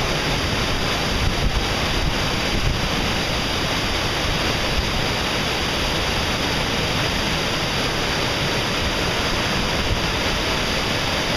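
Glacier-fed river in flood, a raging torrent of whitewater rushing below: a loud, steady rush of water that does not let up.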